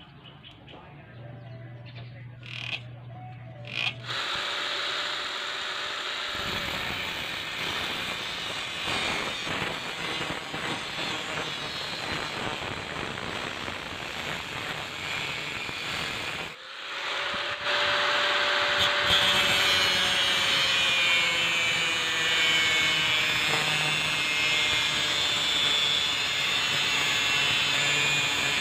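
Angle grinder with a cutting disc cutting through metal stair-nosing trim. It starts about four seconds in, drops out briefly midway, then cuts again more loudly with a whine that slowly falls.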